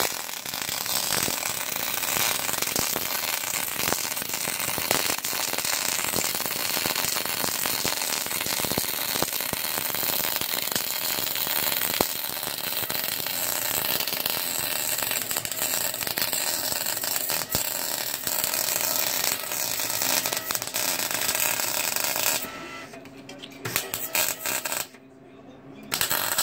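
MIG (wire-feed) welder's arc crackling steadily as a butt weld is run on a car's steel exhaust pipe. It stops about 22 seconds in, followed by a couple of short bursts of welding near the end.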